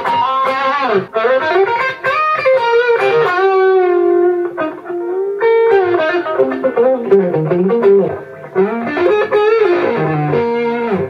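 Electric guitar played through a Fractal Audio Axe-Fx II amp modeler: a lead line of sustained single notes with string bends and vibrato.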